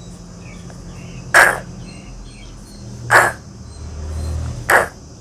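A woman saying the phonics sound /k/ three times, short breathy "k" sounds without a vowel, about a second and a half to two seconds apart, as the letter K is written.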